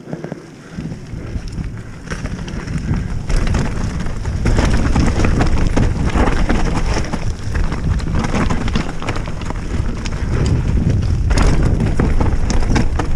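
Specialized Stumpjumper mountain bike riding down a dirt trail: tyres rumbling over loose ground and the bike rattling and clattering over roots and stones, with wind buffeting the action-camera microphone. It starts quieter and gets louder from about four seconds in as the bike picks up speed.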